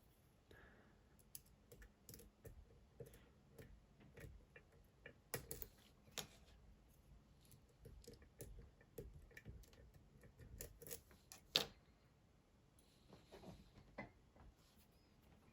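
Faint, irregular clicks and ticks of a lock pick working the pins of a Dom IX Twinstar lock under tension, with one sharper click about eleven seconds in.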